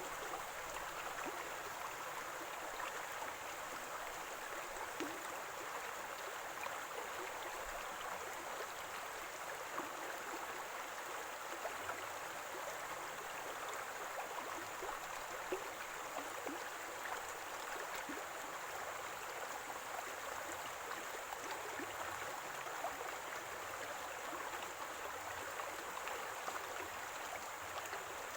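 Small stream of running water gurgling and trickling steadily, with many small bubbling pops over an even rush.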